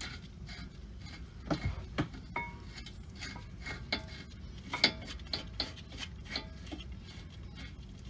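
Irregular light metal clicks and clinks, a few ringing briefly, from new brake parts being handled and fitted at the hub: caliper, caliper mounting bracket and pad clips.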